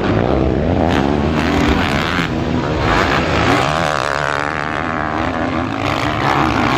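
Motocross dirt bike engines revving hard and dropping back as the bikes ride a dirt track. The pitch rises and falls over and over with throttle and gear changes.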